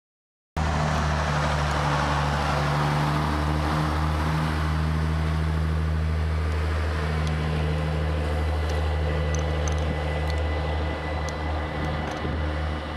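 Departing train of an ex-NS DE1 diesel-electric railcar and Mat '24 'Blokkendoos' carriages: the diesel engine runs with a steady low hum while the wheels rush past on the rails, with scattered clicks of the wheels over joints in the second half as it draws away. The sound cuts in abruptly half a second in.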